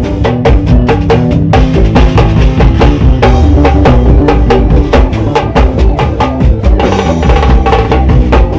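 Loud live swingueira band music: fast, steady percussion hits over a heavy bass line, with sustained pitched instrument notes.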